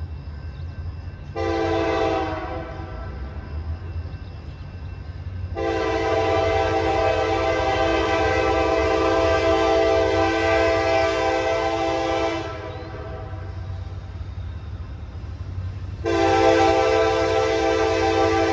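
Approaching train's locomotive air horn sounding a chord in three blasts: a short one about a second and a half in, a long one of about seven seconds, and another that starts near the end. A steady low rumble runs underneath.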